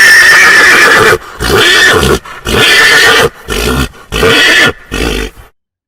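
A horse neighing: one long whinny, then about five shorter calls, stopping abruptly near the end.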